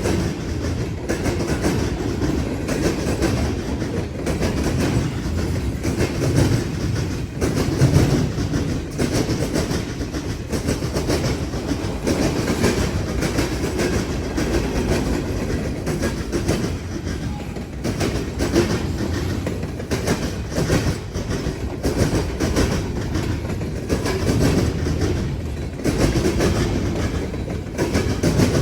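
Freight train cars rolling over a railroad diamond crossing, the wheels banging over the crossing in a continuous clatter of rapid, irregular impacts over a steady low rumble.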